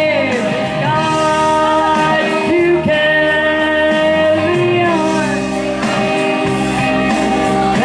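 A woman singing karaoke into a microphone over a recorded backing track, with long held notes that glide between pitches.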